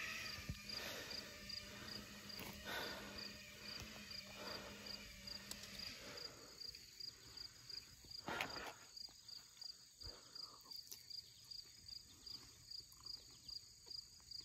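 Faint, steady chirping of an insect, about two high chirps a second. A low hum sounds under it for the first six seconds or so.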